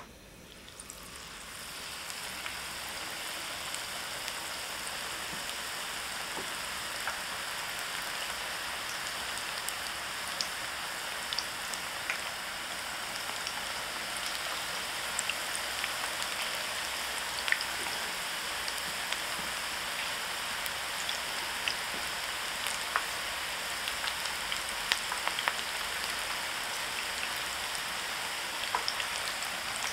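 Battered kakiage (carrot, onion and green pepper fritters) deep-frying in hot oil: a steady sizzle with scattered sharp pops and crackles. It swells up over the first couple of seconds as the batter goes into the oil.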